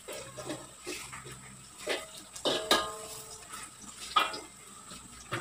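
Metal spatula scraping and clinking against a wok as sausages, onion and garlic are stirred in oil. There are a few sharp knocks, the loudest about two and three quarter seconds in and again about four seconds in.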